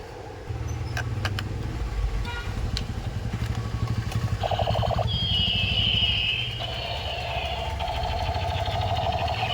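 Battery-powered toy machine gun firing. A rapid buzzing rattle from its vibration mechanism starts about half a second in, and electronic sound-effect tones join it a few seconds later.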